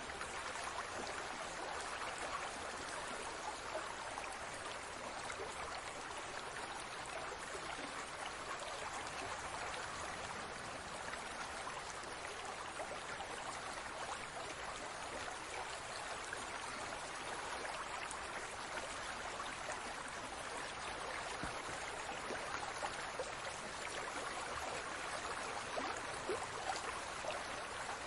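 Aquarium water bubbling and trickling steadily, a continuous wash of water noise flecked with tiny pops of bursting bubbles.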